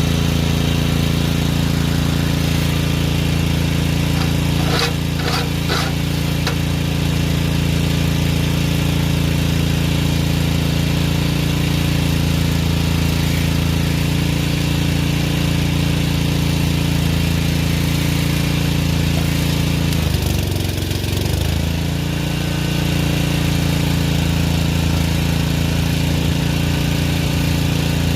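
An engine running steadily at constant speed, with a few sharp crackles about five seconds in; about twenty seconds in its pitch sags briefly and then recovers.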